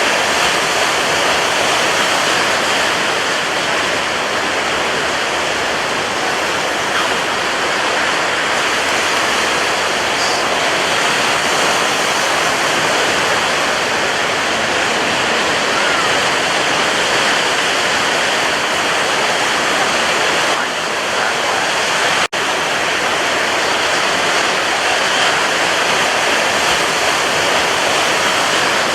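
Sea surf rushing steadily, a dense continuous wash of breaking water with no separate wave swells standing out. There is a momentary dropout in the sound about three-quarters of the way through.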